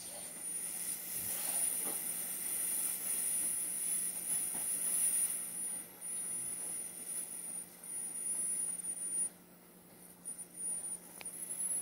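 Steady background hiss with a thin, high-pitched whine and a low hum, with no distinct events; it drops quieter for about a second near the end before returning.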